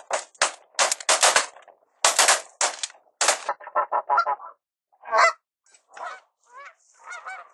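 A flock of geese honking overhead: loud honks in quick succession for the first three seconds, a rapid run of short calls about four seconds in, then fainter, wavering honks.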